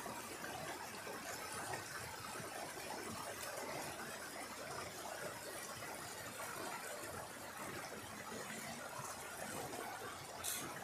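Small mountain stream rushing steadily over rocks in a cascade, with a brief sharp click near the end.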